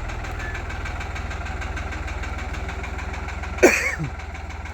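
New Holland 3636 tractor's diesel engine running steadily with an even, rapid low beat. About three and a half seconds in, a short, loud sound falls sharply in pitch over it.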